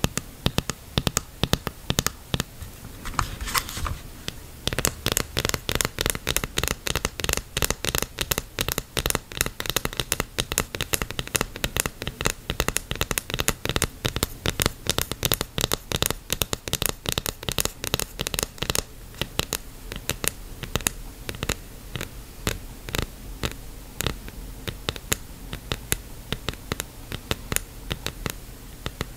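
Long fingernails tapping on a snorkel mask's lenses and frame, a stream of crisp clicks in fast runs that thin out for the last ten seconds or so.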